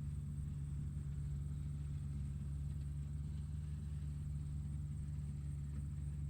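Tractor engine running steadily, a constant low rumble with no change in speed.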